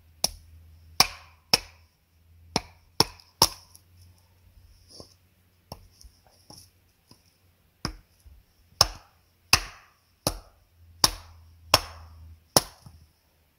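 Hatchet chopping a block of dry dead cedar, splitting and shaping it into a bow-drill hearth board. About a dozen sharp chops at uneven spacing, with a few lighter taps in the middle.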